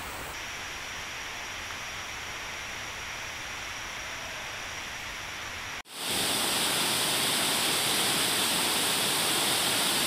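Steady rush of fast-flowing stream water. About six seconds in it cuts out for an instant and returns louder and brighter, the swift water now close by.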